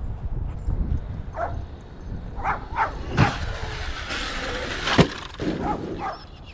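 Electric RC monster truck running over dirt, with a few short sharp noises, then a sharp thud about five seconds in as it lands a jump.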